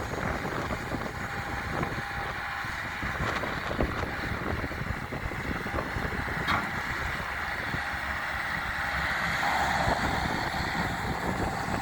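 Engine of a 2002 Bobcat S185 skid steer loader running steadily, with wind noise on the microphone.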